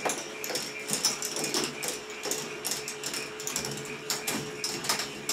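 K'NEX ball machine running: a stream of irregular clicks and rattles from balls moving through the plastic tracks and lifts, over a steady hum.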